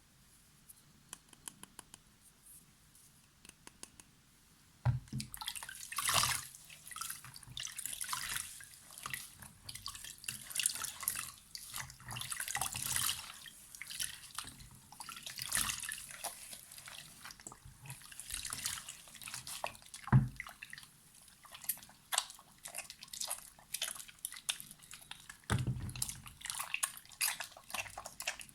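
Soap being lathered with water: quiet faint ticks at first, then from about five seconds in a dense wet crackling and squishing of foam, with a few soft thumps.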